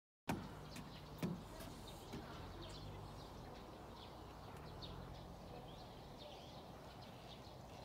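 Quiet outdoor ambience: a low steady hum with scattered faint, short high chirps of small birds, and two sharp clicks in the first second or so.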